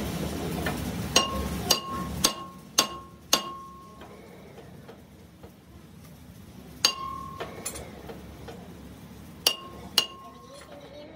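Hammer blows on a steel wheel mounted on a lathe, each a sharp metallic clank that rings on briefly. Five come in quick succession about every half second, then one more a few seconds later and two close together near the end.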